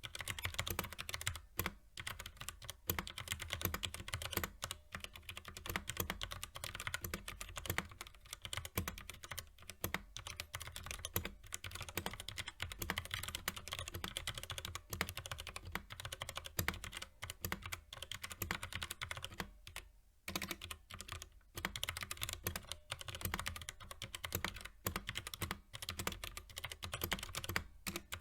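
Continuous typing on a mechanical keyboard with Outemu Brown tactile switches, a dense irregular stream of key presses and bottom-outs, with a brief pause about twenty seconds in.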